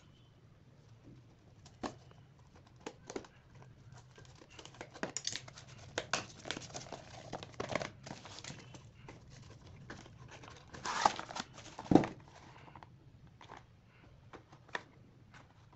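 Tape and plastic packaging being crinkled and torn off a small cardboard box by hand, with scattered clicks and rustles and a louder burst of tearing about two-thirds of the way through.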